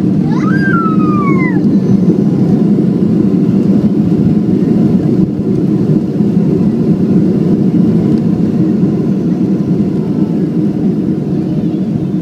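Cabin noise of a Boeing 737-500 taxiing after landing, its CFM56 engines at idle: a steady, loud low rumble. About half a second in, a short high sliding sound like a voice rises and falls.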